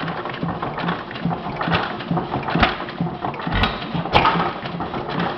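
Model hit-and-miss hot-tube gas engine running: a steady mechanical clatter of a few ticks a second as the flywheel turns, with heavier firing thumps at irregular spacing, a few of them in the second half, as it hits and misses.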